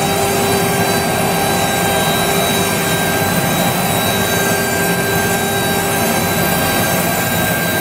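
A CNC router's spindle running at speed while its bit mills a groove in a wood sheet: a steady high whine over a dense cutting rush.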